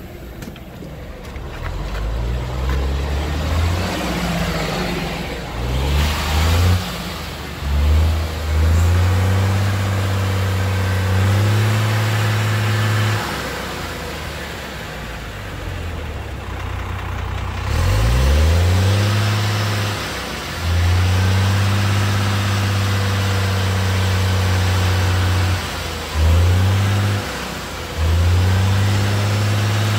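Cummins ISM inline-six diesel in a Neoplan AN440 transit bus, revved over and over: the pitch climbs, holds steady at a high speed for a few seconds, then drops briefly before the next rev, with a throaty exhaust note.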